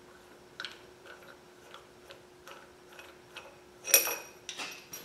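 Light, irregular metallic clicking and ticking as a nut and washer are spun off by hand from the threaded rod of a homemade harmonic balancer installer. About four seconds in comes a louder ringing metal clink.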